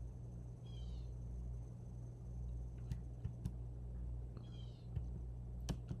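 Computer keys clicking a few times in the second half over a steady low hum, with two short, high chirps, about a second in and again in the middle.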